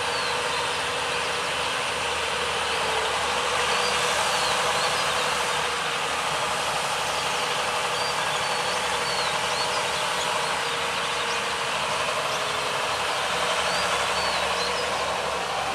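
Diesel engines of hydraulic crawler excavators running steadily under digging load, heard as a continuous machinery drone, with short high chirps over it.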